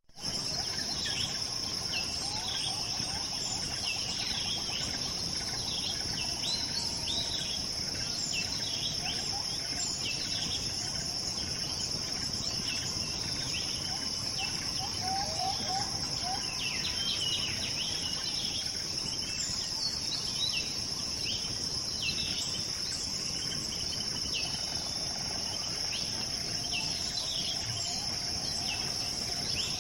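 A steady, high insect drone, with many short bird chirps scattered over it throughout.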